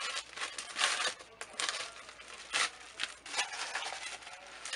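Paper wrapping crinkling and rustling in irregular bursts as a small wrapped gift is unwrapped by hand.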